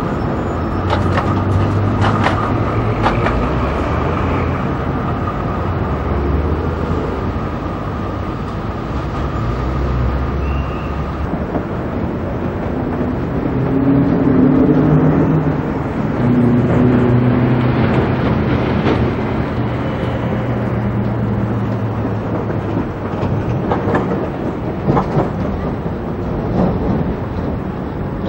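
Tram and electric suburban train running on steel rails: a steady rumble of wheels with a low hum in the middle. Sharp clicks of wheels over rail joints come early and again near the end.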